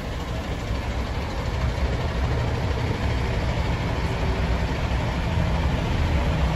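Diesel engine of a MAN tractor unit running as the truck pulls slowly forward, a low rumble that grows a little louder about two seconds in as it draws nearer.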